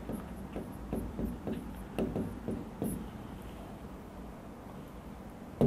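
Pen writing on an interactive touchscreen whiteboard: a run of soft taps and knocks, a few a second, for the first three seconds, then a quieter stretch and a sharper knock near the end.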